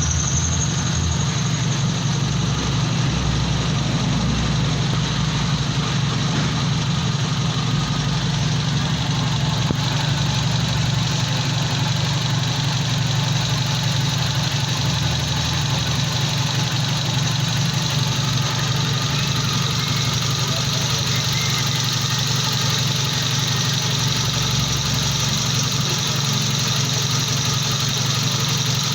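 1997 Suzuki Baleno's petrol engine idling steadily.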